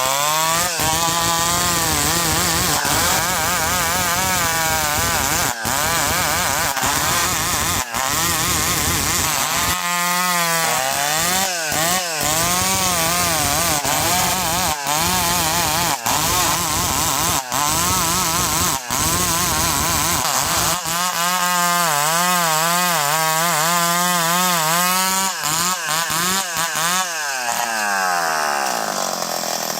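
Chainsaw running at high revs while cutting ulin (Bornean ironwood), its engine note wavering up and down again and again as the cut loads and frees the chain.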